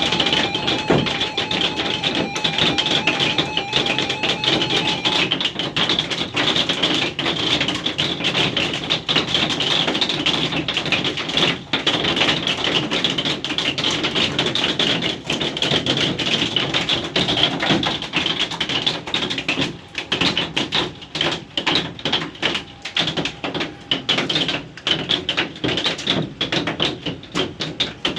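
Hailstones pelting a hard surface in a dense, continuous clatter of small hits. Past the middle the hits thin out into sparser, separate strikes.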